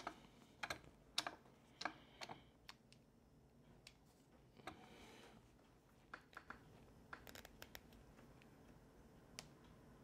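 Faint, scattered light clicks and taps of small pen parts, a wooden barrel and brass fittings, being handled and set down, most of them in the first couple of seconds and a few more later on.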